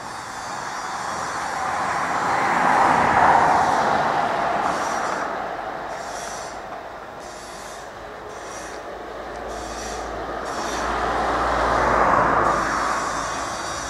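Two vehicles passing over a railway level crossing one after the other, each a rushing noise that swells and fades over several seconds, the second a little deeper.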